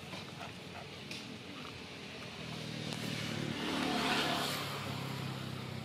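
A motor vehicle passing by, its engine sound swelling to a peak about four seconds in and then fading, over steady outdoor background noise.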